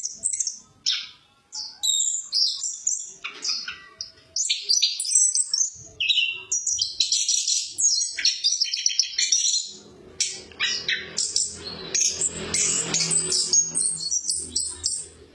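Orange-headed thrush singing: a run of quick, varied, high-pitched phrases with short breaks. A steady low hum joins in from about ten seconds in.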